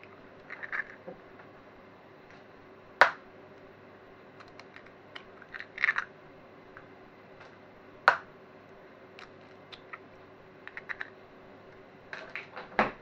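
Hen's eggs being cracked into a glass measuring jug: two sharp knocks of eggshell against the jug, with light crackling of shells being pulled apart in between and again near the end.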